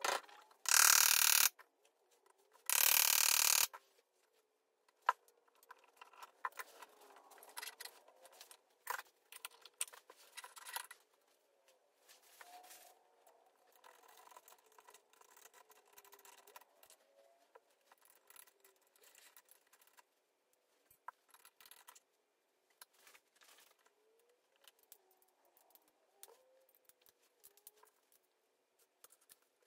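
Metal gearbox parts being handled and worked loose during a Type 9 gearbox strip-down: scattered clinks, taps and scrapes of steel on steel and alloy. Near the start come two loud noisy bursts, about a second each and two seconds apart.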